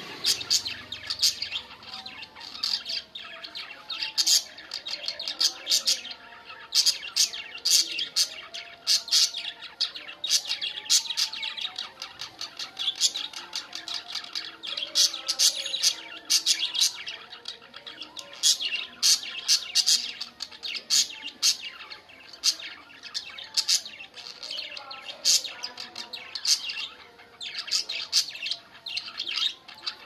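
A group of budgerigars chirping and warbling: quick runs of high, sharp chirps one after another, with a softer chattering warble underneath.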